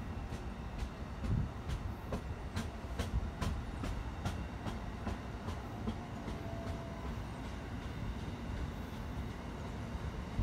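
Amtrak passenger cars rolling past close by: a steady low rumble with sharp clicks of wheels over rail joints, the clicks thinning out after about five seconds.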